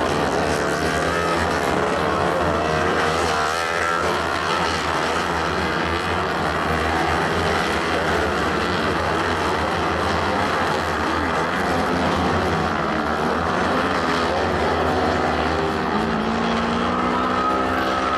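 Several kart cross buggy engines running hard on a dirt track, their pitch wavering up and down as the drivers accelerate and lift off through the turns. In the last couple of seconds one engine revs up steadily.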